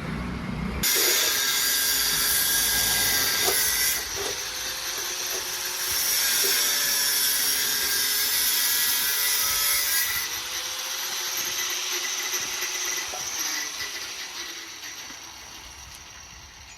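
Handheld power tool working on metal: it starts suddenly about a second in with a harsh, hissing grind, eases off briefly, bears down again, then trails away over the last few seconds.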